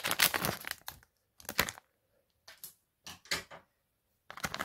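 Foil booster pack crinkling and crackling in the hands as it is opened. A dense run of crackles comes first, then a few separate crackles with short pauses, and dense crackling again near the end.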